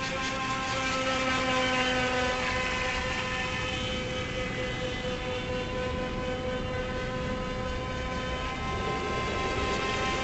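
Feilun FT009 RC speed boat's electric motor running at a steady high-pitched whine as the boat runs across the water.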